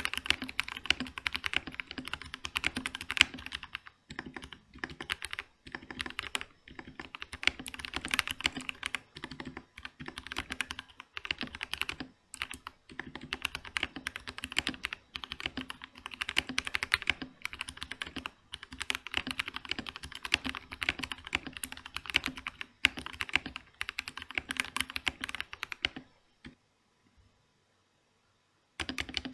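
Steady, fast typing on a Vortex VX5 mechanical keyboard with lubed Otemu Brown tactile switches, Cherry-profile keycaps and added case foam: a dense, irregular run of key clacks. The typing stops for about three seconds near the end, then starts again.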